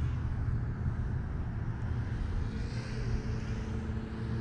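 Steady low mechanical hum with a few faint steady tones over it.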